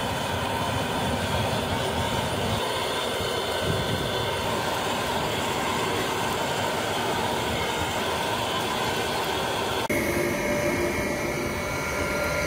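Steady rushing roar of forced air driving a burning charcoal forge, with a faint motor whine; the sound changes suddenly about ten seconds in.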